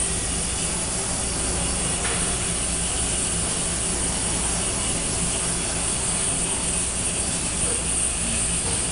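Running Okuma MB-5000H machining cell with its Fastems pallet stacker: a steady hiss with a low hum beneath and no distinct knocks.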